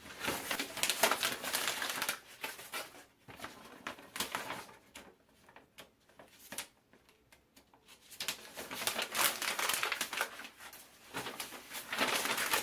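Paper being crumpled and stuffed into a hanging fabric organizer basket, a dense crinkling crackle. It comes in two spells, about three seconds at first and again from about eight seconds in, with a quieter stretch between.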